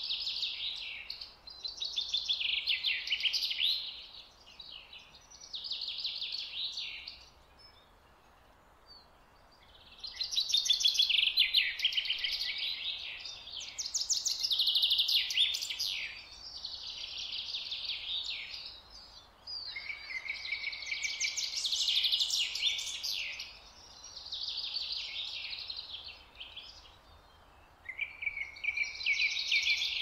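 A songbird singing: about nine high, rapidly trilled and chattering phrases, each lasting one to three seconds, with short pauses between them.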